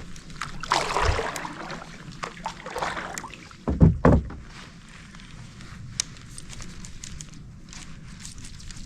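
Water splashing and sloshing around a fishing kayak, with two dull knocks in quick succession about four seconds in.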